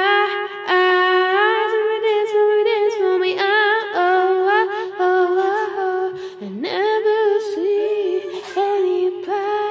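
A girl humming a wordless tune close to a small handheld microphone, in short held phrases with wavering notes and a quick upward swoop about six and a half seconds in.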